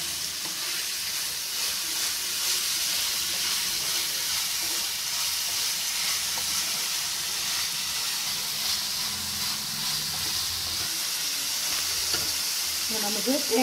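Mutton liver pieces frying in oil in a nonstick pan, a steady sizzle, while a wooden spatula stirs them.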